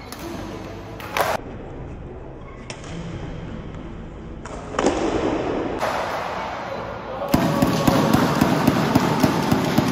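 Badminton match in a sports hall: one sharp smack about a second in over murmuring hall noise, then from about seven seconds a louder dense din of crowd noise filled with many sharp claps or hits.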